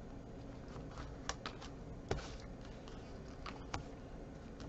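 Faint handling of a roll of double-sided tape and paper: a few separate soft clicks and taps as the tape is laid and pressed along the edges of a paper panel.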